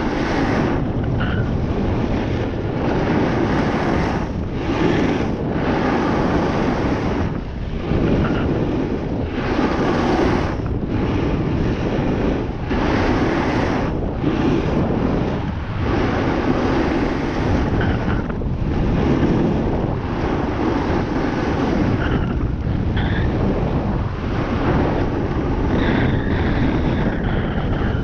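Wind rushing over the microphone during a run down a ski slope, with the hiss of snow under the edges rising and dropping every few seconds as turns are made.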